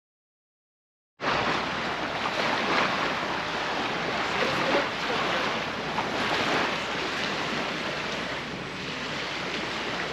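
Steady rush of water, cutting in abruptly after about a second of dead silence.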